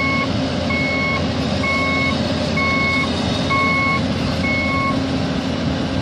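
Heavy-equipment backup alarm beeping six times, about once a second, over a steadily running engine.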